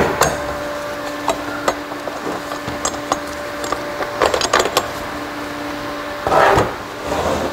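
Steel parts clicking, knocking and scraping against the transfer case as the shift fork and collar of a BorgWarner 1356 transfer case are worked loose by hand, with a cluster of clicks about halfway through and a louder scrape near the end. A steady hum of a shop fan runs underneath.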